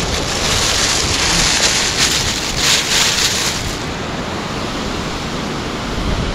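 Sea surf washing over rocks at the foot of a cliff, with hissing surges during the first few seconds that then ease to a lower wash. Wind rumbles on the microphone.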